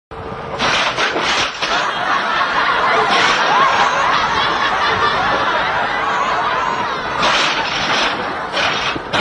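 People laughing loudly, with several sharp knocks and rattles from a metal garden swing set that a sheep is butting, its swings flying.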